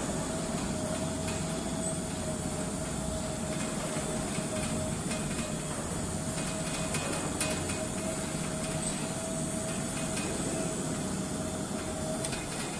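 Gantry crane's electric hoist running with a steady whine over a low rumble as it lowers a suspended load, the whine cutting off near the end, with a few faint metallic clinks.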